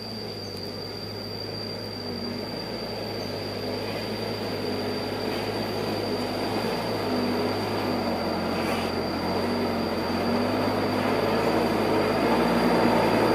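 Diesel dump truck engine running as the truck approaches on a gravel road, growing steadily louder, with a steady high-pitched whine above it.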